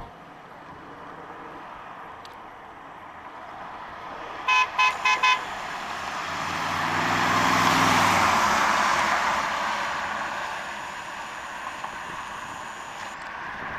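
1952 Chevrolet Deluxe wagon with a 350 V8 approaching, passing and driving away. About four and a half seconds in its horn gives four quick toots. The engine and tyre noise swell to a peak as it passes about eight seconds in, then fade.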